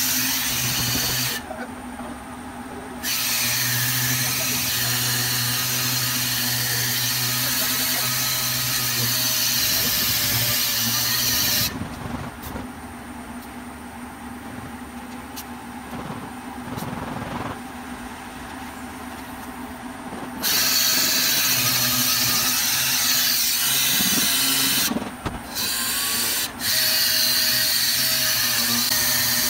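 Air-powered random-orbital sander running against a car's body panels, a steady hum with a hissy rasp. It is used to sand the bodywork down before filler goes on. It stops briefly a couple of seconds in, goes quiet for about eight seconds in the middle, then runs again with two short breaks near the end.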